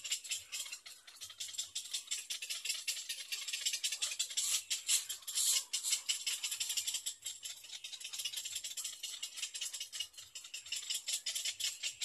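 Little egret chicks giving a fast, dry clicking rattle, their begging call for food, which swells for a couple of seconds about four seconds in as the adult arrives at the nest.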